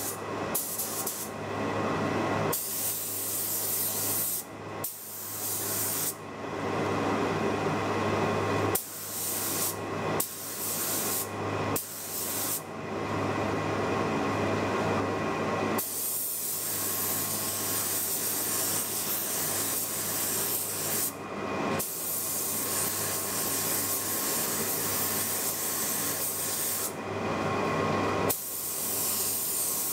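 Spray gun hissing as it lays clear coat onto a distressed, powder-glazed wood cabinet panel, in passes with short breaks where the trigger is let off. A steady low hum runs underneath.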